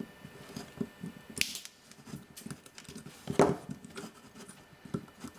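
Small clicks, taps and scrapes of hands and a hand tool working on the avionics unit, with two sharper snaps about a second and a half in and again two seconds later, like cutters snipping zip ties off the wiring.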